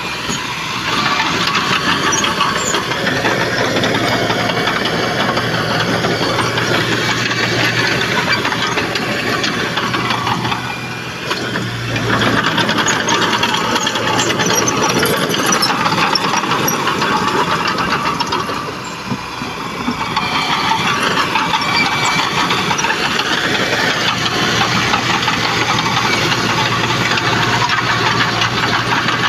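Heavy diesel engine of earthmoving machinery running steadily and loudly. The level dips briefly twice, about a third and about two-thirds of the way through.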